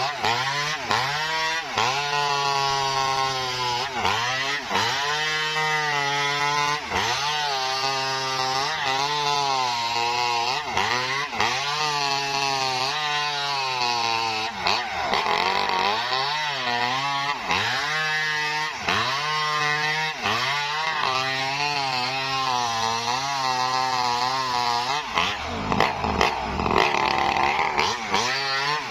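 Maestro mini two-stroke chainsaw ripping a felled coconut palm log lengthwise, running at full throttle. The engine pitch dips and recovers about once a second as the chain bites into the wood.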